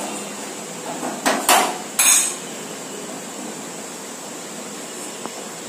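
Three quick metallic clanks, a little over a second in, from a flat griddle pan being handled on a gas stove.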